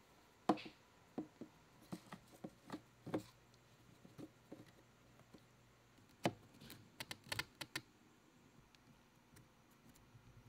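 Small stones clicking and knocking as they are handled and set in place in a terrarium. The light, sharp clicks come irregularly through the first three seconds, then in a quick cluster about six to eight seconds in.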